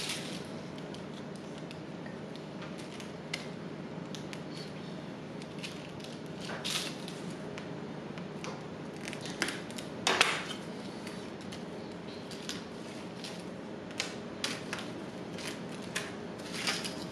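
Steel knife crunching and scraping through a crisp baked puff-pastry sheet for mille-feuille, drawn along a metal ruler, with scattered crackles and a few louder crunches, the loudest about ten seconds in.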